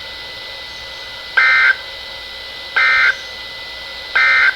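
Three short buzzing bursts of Emergency Alert System SAME data tones, evenly spaced about a second and a half apart: the end-of-message code that closes a NOAA Weather Radio warning broadcast.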